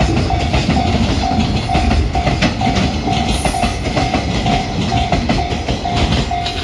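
Freight train container wagons rolling slowly past, with a low rumble and wheels clattering over rail joints; the last wagons clear near the end. Over it, a level crossing warning bell dings steadily about twice a second.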